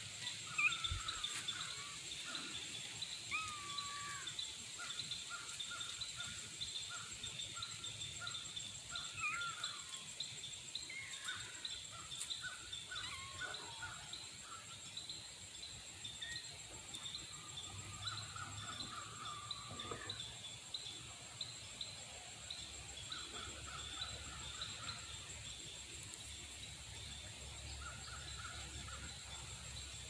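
Wild birds calling and chirping in the trees: scattered runs of quick repeated notes and a few sliding calls. Underneath, a steady, fast, high-pitched pulsing chirr goes on without a break.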